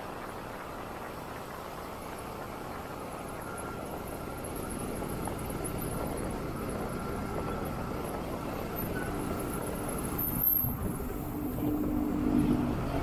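Motorcycle riding in slow city traffic: steady engine and road noise. A low engine drone from a large truck alongside comes in and grows louder near the end.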